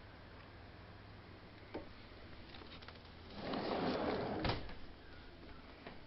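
A door being closed: about a second of sliding noise that ends in a sharp knock as it shuts.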